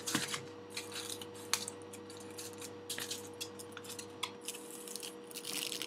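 Styrofoam natto pack being opened and handled by hand: irregular light clicks, taps and rustles of the foam lid and the plastic inside.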